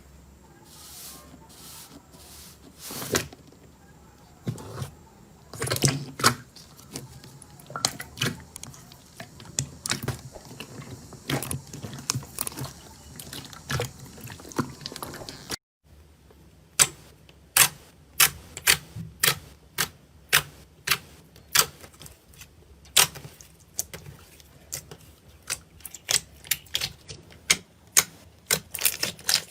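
Slime being handled, making a string of crisp pops and clicks. There is a brief break about halfway; after it the pops are sharper and more regular, about one to two a second.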